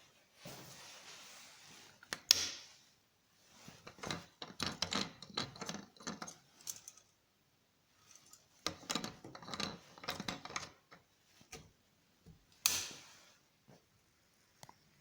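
Clicks and rattles of small hard objects being handled, in several separate flurries with a few sharper knocks.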